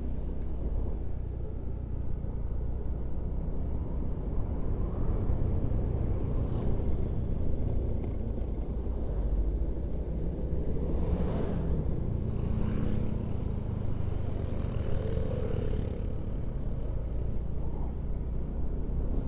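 A vehicle driving on the road: steady low engine and road rumble, with a few brief louder swells about a third of the way in and again past the middle.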